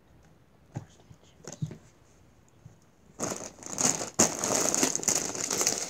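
Clear plastic wrapping crinkled and crumpled between the hands, made for ASMR. A few faint crackles in the first two seconds, then loud, continuous crinkling from about three seconds in.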